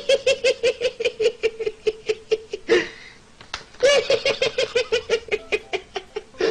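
A person laughing hard and high-pitched, a rapid run of ha-ha-ha pulses about five or six a second, in two long bouts with a breath in between about three seconds in.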